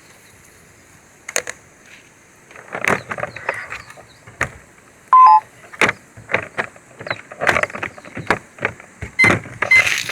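Irregular sharp clicks and knocks, with a short electronic beep about five seconds in that drops to a lower tone, and two brief high beeps near the end.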